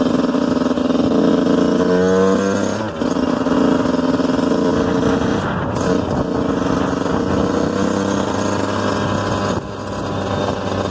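Engine of the vehicle carrying the camera running as it drives along a road, revving up about two seconds in and dropping back about a second later, as at a gear change, then running steadily and easing off near the end.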